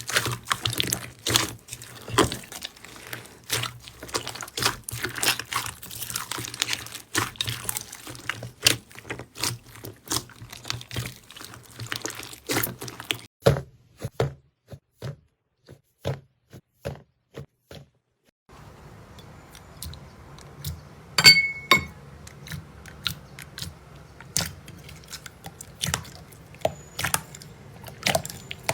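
Slime being squeezed and pressed by hand, giving dense sticky clicks, crackles and pops. It stops briefly about two-thirds of the way through, then starts again over a low hum, with a few louder pops soon after.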